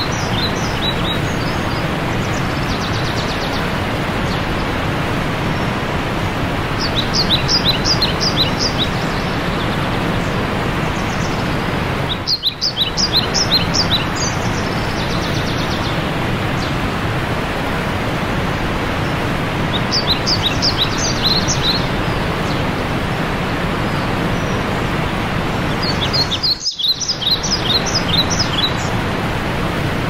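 Waterfall's steady rush of falling water, with a songbird singing four short phrases of rapid, high chirping notes over it, each lasting about two seconds.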